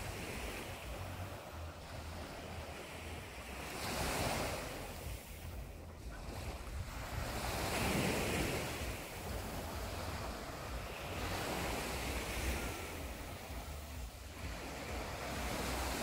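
Small Black Sea waves breaking and washing up a sandy beach, the surf swelling several times, with wind rumbling on the microphone.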